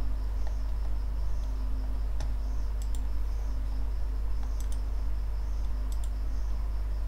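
Steady low electrical hum with a faint pulsing high chirp behind it, broken by a few scattered sharp clicks.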